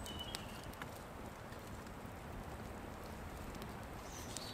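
Wood campfire crackling, with a steady low rumble and a few sharp pops. Brief faint high whistles come in near the start and near the end.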